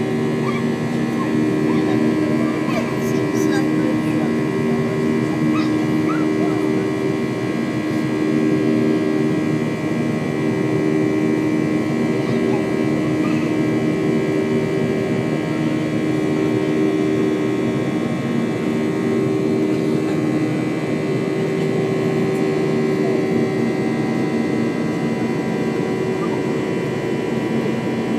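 Steady cabin drone of a Boeing 737-800 climbing after takeoff, its CFM56 jet engines running at climb power and heard through the fuselage: a rushing noise with several low humming tones that pulse slowly.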